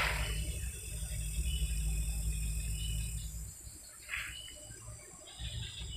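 Night insects such as crickets keep up a steady high chirring. A low rumble sits on the microphone for the first three seconds or so, and a brief rustle comes about four seconds in.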